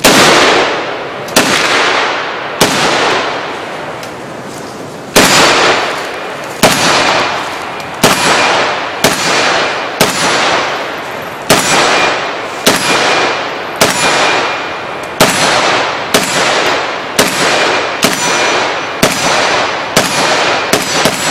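American Tactical milled-steel-receiver AK rifle fired about two dozen single shots at an uneven pace of roughly one to two a second, with a pause of a couple of seconds early on. Each shot is followed by a long fading echo.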